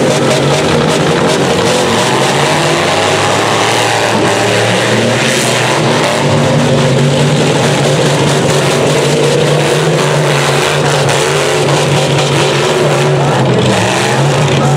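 Several demolition derby vans and pickup trucks running and revving their engines together, a loud, continuous mix of engine notes rising and falling.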